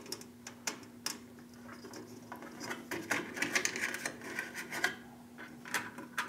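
Small nuts being threaded by hand onto the studs of a metal bracket, giving scattered light metallic clicks and ticks, over a steady faint hum.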